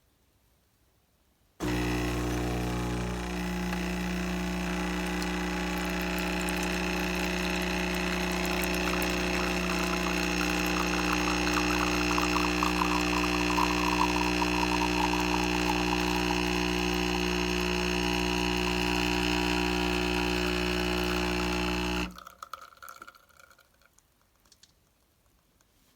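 Espresso machine's pump running steadily with a hum for about twenty seconds as liquid pours, starting abruptly and cutting off suddenly, followed by a few faint clicks.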